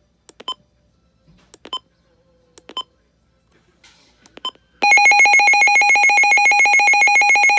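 Midland WR-400 weather radio: four short button beeps as its menu keys are pressed, then, nearly five seconds in, its loud alert test tone starts, a rapidly pulsing electronic alarm.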